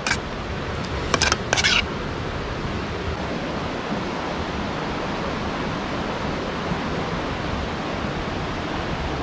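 Steady rush of a river running over rocks, with a few short scrapes in the first two seconds.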